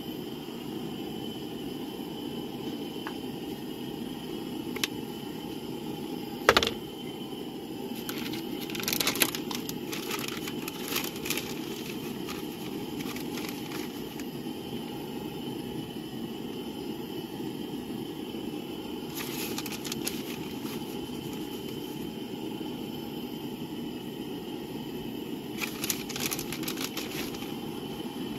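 Plastic bag of shredded mozzarella crinkling as it is handled, in three bursts of rustling, over a steady low background rumble. One sharp click about six and a half seconds in.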